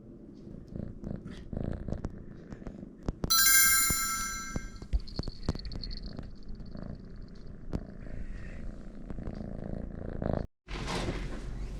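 Kitten purring, a low rumbling with small clicks. About three seconds in, a bright ringing tone with many overtones sounds for about a second and a half, louder than the purring.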